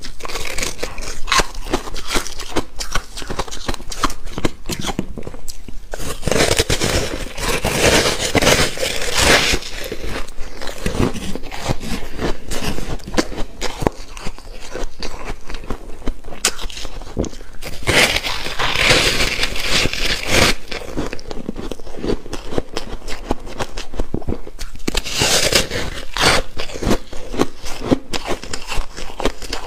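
Close-up chewing of frozen foam ice: a steady run of sharp, crackling crunches. There are three spells of louder, denser crunching: about a quarter of the way in, just past the middle, and near the end.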